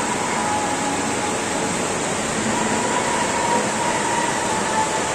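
Steady, even background noise of an indoor shopping arcade, with faint thin tones drifting in and out.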